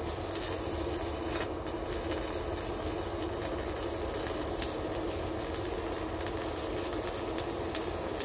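Stick-welding arc crackling and sizzling steadily as an E6013 electrode burns on an inverter welder, with one brief drop in the crackle about a second and a half in.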